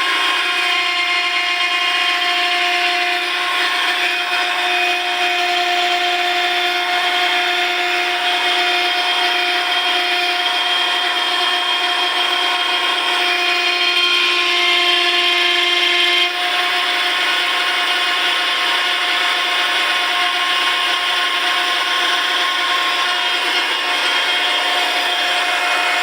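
Electric hydraulic pump of a rear-axle assembly press running steadily with a multi-tone whine while it presses a trailing arm onto a Peugeot rear axle. Partway through, one of the lower tones drops out.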